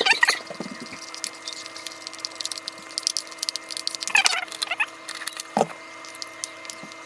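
Pancake batter being mixed by hand in a bowl: fast, uneven clicking and tapping of the utensil against the bowl over a steady low hum.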